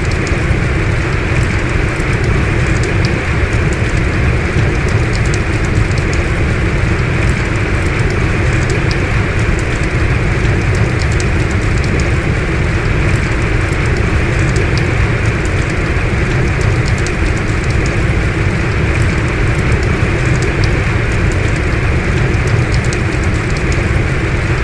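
Heavy rain falling steadily: a dense, unbroken hiss with scattered sharp ticks of individual drops.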